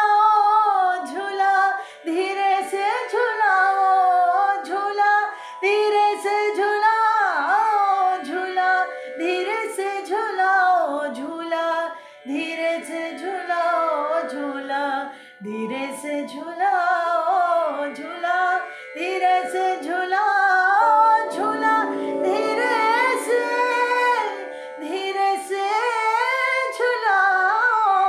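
Woman singing a Hindi jhoola folk song in long, ornamented phrases that slide between notes, with short breaths between them, over a steady drone accompaniment.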